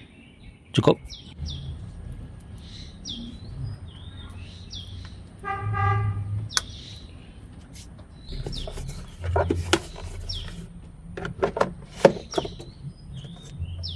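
Clicks and knocks of parts being handled and fitted in an engine bay, the sharpest as the plastic air-intake cover is pushed into place near the end, with birds chirping in the background and a short horn-like beep about six seconds in.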